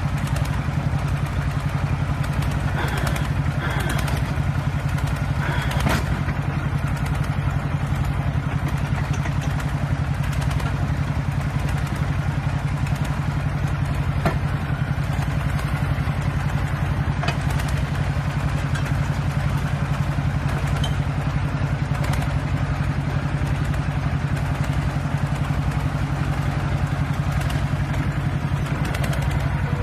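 Tractor engine driving a tractor-mounted drilling rig, running steadily, with a few short metallic knocks from the rig.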